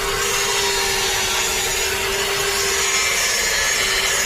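Angle grinder grinding the root pass of a pipeline weld, running steadily with one constant whine over a hiss.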